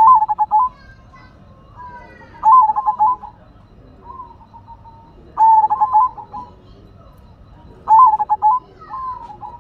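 Zebra dove (perkutut) cooing: four short phrases of rapid staccato notes, one every two to three seconds, with softer drawn-out notes between them.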